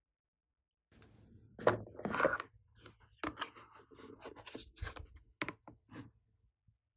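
Slime being worked by hand, with irregular squishing, crackling and sticky clicking sounds that start about a second in and stop shortly before the end.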